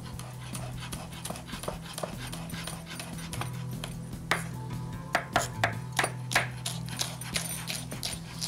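Kitchen knife chopping green chillies on a wooden cutting board: irregular sharp knocks of the blade on the board, coming thicker and louder about four to six and a half seconds in, over soft background music.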